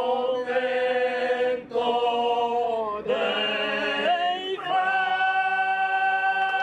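Background music of voices singing in a choir-like way: three held phrases, then one long sustained note over the last two seconds.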